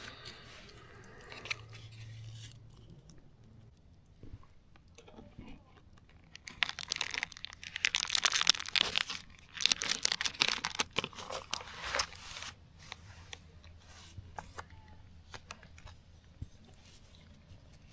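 Crunching and crinkling as crisp hot bread is handled and broken. It is loudest in two stretches of about three seconds each near the middle, with scattered clicks around them.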